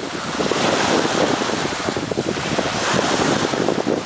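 Small waves breaking and washing up on a sandy shore, with wind buffeting the microphone.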